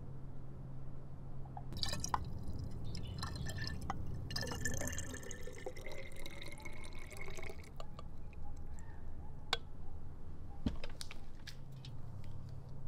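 Fresh lemon juice trickling and dripping from a hand-operated lever citrus press into a glass bottle, with a few sharp clicks in the second half.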